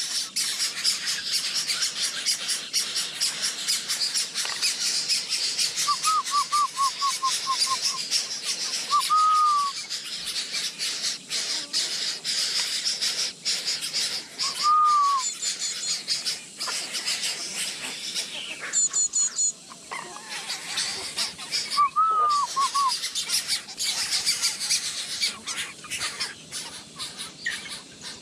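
Birds chirping: a dense, high, continuous chirping with a clear arching call repeated every few seconds, once as a quick run of falling notes, over scattered clicks.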